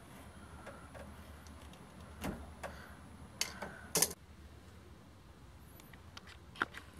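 Hand wire stripper working on 14-gauge wire: a handful of short, sharp clicks and snips as the insulation is stripped off, the loudest about four seconds in.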